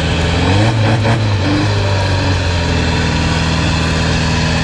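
Off-road 4x4 pickup's diesel engine running hard under load as its mud tyres churn through deep mud, the revs rising about a second in and then held steady.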